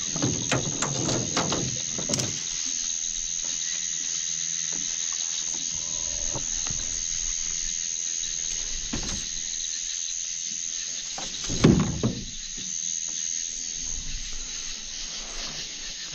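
Night insect chorus: a steady high-pitched shrilling of crickets and other insects. A few knocks come through it, the loudest about twelve seconds in.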